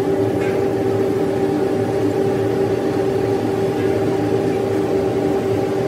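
Steady mechanical drone of machinery running, holding a constant hum with a few fixed tones that do not change.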